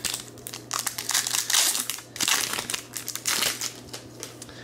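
Foil wrapper of a 2019 Topps Update baseball card pack crinkling in irregular bursts as hands tear it open.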